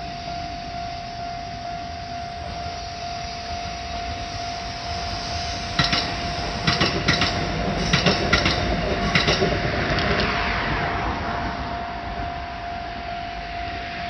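Level crossing alarm ringing steadily while a Kintetsu train passes over the crossing. Its wheels clack over the rail joints in quick groups about halfway through, when it is loudest.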